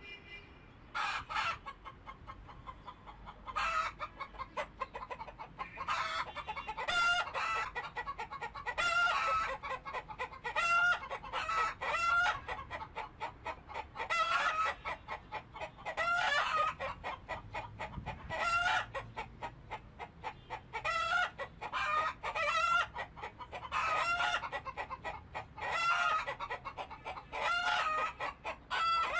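Chickens calling and clucking over and over, short pitched calls every second or two.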